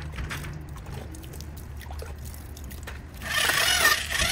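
Electric drill with a paddle mixer churning wet pointing mortar in a plastic bucket: a steady low motor hum with wet slopping and scraping, getting louder about three seconds in.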